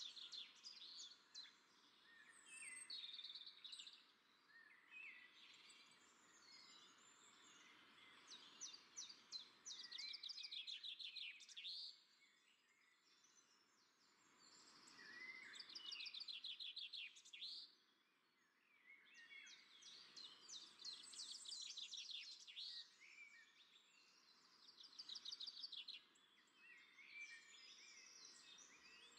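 Faint small birds chirping and trilling in rapid runs of high notes, several calling at once over a soft steady hiss. The calls fall away briefly about twelve and eighteen seconds in.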